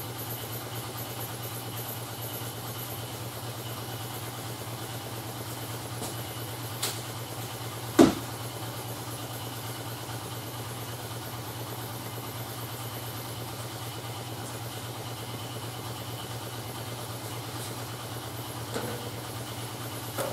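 A steady low mechanical hum of shop machinery running, with one sharp knock about eight seconds in and a lighter tap shortly before it.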